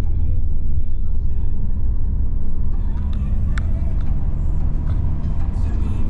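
Road and engine noise heard inside a moving car's cabin: a steady low rumble, with a few light clicks in the second half.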